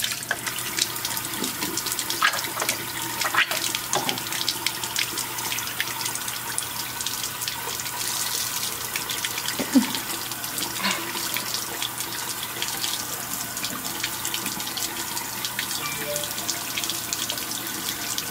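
Tap water running steadily into a sink as a newborn's hair is washed under it, with scattered small splashes.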